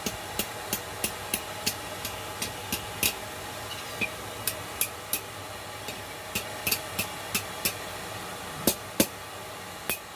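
Hammer striking steel on an anvil: light blows in runs of about three a second with short pauses, and two heavier blows close together near the end, over a steady hiss.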